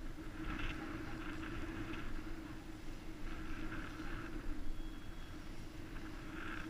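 Garrett AT-series metal detector sounding as its coil is swept over grass: a steady low hum with higher signal sounds coming and going every few seconds, over low wind rumble on the microphone.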